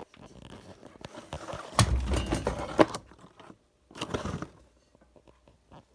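Hands working on bicycle parts in a small room: knocks and clatter of metal pieces being handled, loudest for about a second around two seconds in, with a strong knock at each end of it, and another short burst of clatter near four seconds.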